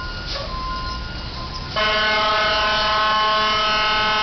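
A box truck's reversing beeper sounds in short repeated beeps. About two seconds in, a vehicle horn starts a long, steady blast, much louder than the beeper, which lasts to the end: a warning to the truck reversing toward the ambulance behind it.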